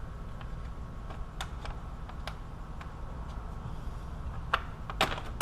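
Irregular light metallic clicks and taps of hand tools and a bolt being handled and fitted during the fan assembly reinstall, with a few sharper clicks near the end, over a steady low hum.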